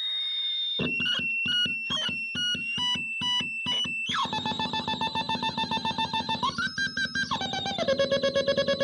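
Handmade four-oscillator noise box putting out buzzy electronic tones. For the first few seconds it makes choppy, stuttering beeps that jump between pitches. It then settles into a rapidly pulsing tone that steps down in pitch a few times near the end.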